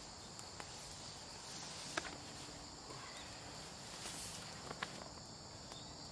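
Steady high-pitched insect chorus, like crickets or cicadas in the woods, holding two even tones. A few sharp clicks or snaps cut through it, the loudest about two seconds in.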